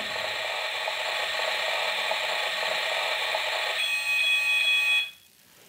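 Battery-powered toy kitchen oven playing its electronic sound effect through its small built-in speaker: a steady electronic tone that shifts to a higher, thinner tone near the end and cuts off suddenly about five seconds in.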